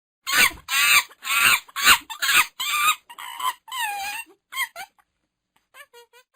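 Monkey calling: a quick run of about nine harsh, wavering calls over the first five seconds, then a few faint short calls near the end.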